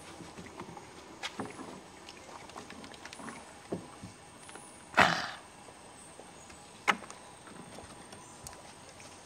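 A few sharp knocks and bumps over a steady faint hiss, the loudest about five seconds in with a short rattling tail, and another near seven seconds.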